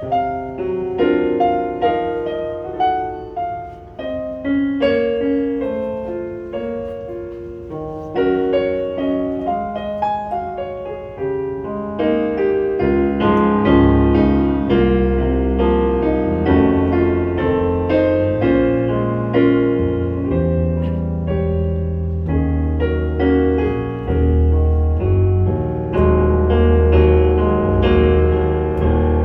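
Piano playing an instrumental break in a slow ballad, a flowing line of separate notes; from about halfway a deeper, fuller bass register joins and the playing grows louder.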